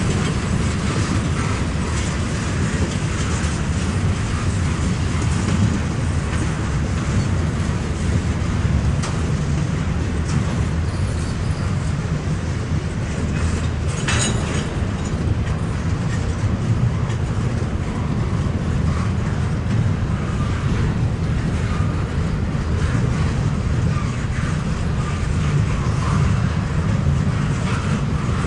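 Double-stack intermodal freight train's well cars rolling past, a steady low noise of steel wheels on rail and car clatter. A single sharp click stands out about halfway through.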